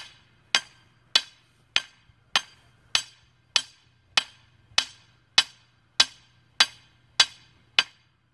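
A 2-pound hammer striking the top of a 6-foot steel bar to drive it into the ground: a steady run of about fourteen sharp metal-on-metal strikes, roughly one every 0.6 seconds, each with a short ring.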